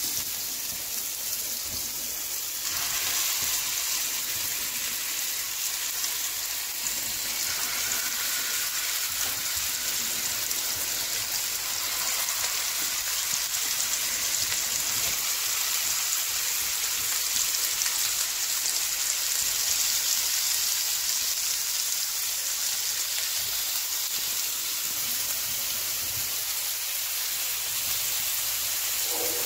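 Mutton seekh kababs sizzling and crackling as they shallow-fry in hot oil in a pan. The sizzle gets louder about three seconds in and stays steady after that.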